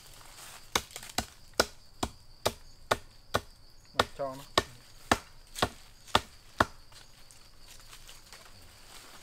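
Machete chopping, about a dozen sharp blows at roughly two a second, stopping after about six and a half seconds.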